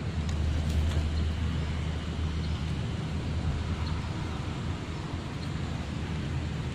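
A steady low motor hum that fades somewhat partway through, over faint outdoor background noise.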